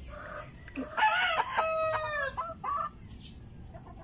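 A rooster crows once, about a second in: a call of about a second and a half that drops in pitch at the end. A few short chicken calls follow.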